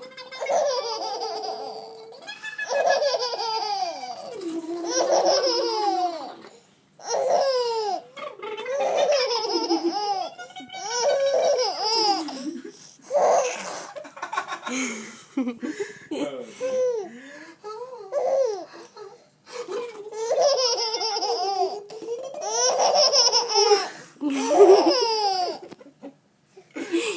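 Baby laughing hard in repeated bouts, about a dozen of them, set off by a man making silly vocal noises between them.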